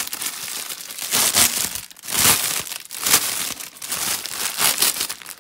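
Plastic film and stiff canvas crinkling as a diamond painting canvas is handled, in a series of irregular rustling bursts.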